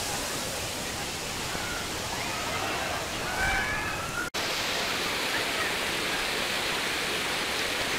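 Rushing water of a waterfall and stream cascading over rocks, a steady hiss. Faint distant voices show through in the first half, and the sound breaks off for an instant a little after four seconds in.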